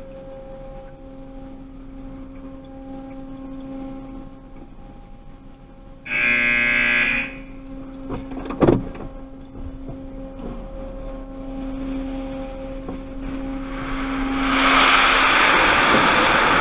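Automatic car wash machinery heard from inside the car: a steady electrical hum, then a loud buzz lasting about a second some six seconds in and a sharp clunk shortly after. Near the end a loud rush of water spray hits the windshield.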